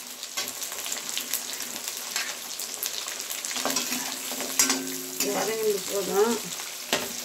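Small onions, garlic and curry leaves sizzling in sesame oil in a pan, stirred with a spatula that clicks and scrapes against the pan. A faint voice in the background for a couple of seconds past the middle.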